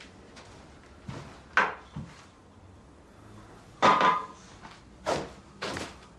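A handful of short, irregular knocks and clatters of objects being handled, the loudest about four seconds in.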